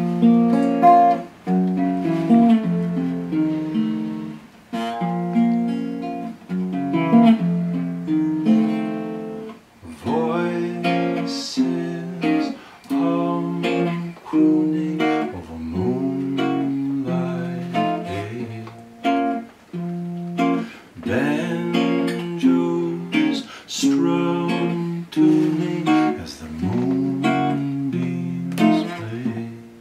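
Small acoustic band playing an old-time song: a strummed archtop guitar, a snare drum and an accordion, with a man singing.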